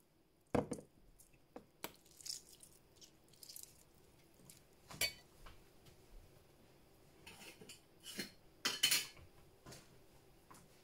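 A metal spoon clinking and knocking against a glass food container of cubed tofu, in a handful of separate knocks with the loudest near the end, mixed with a few short rustles.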